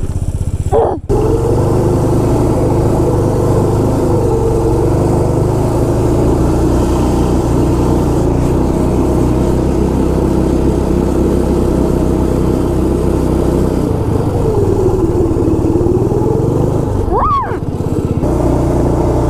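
Small engine of an Arctic Cat ZR 120 kids' snowmobile running steadily. Its pitch dips and comes back up a little past the middle, with brief breaks about a second in and near the end.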